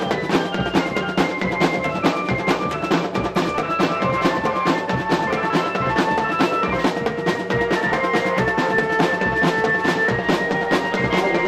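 A marching drum band plays a fast, steady beat on snare drums, multi-tom tenor drums and bass drums, with a melody of held notes over the drumming.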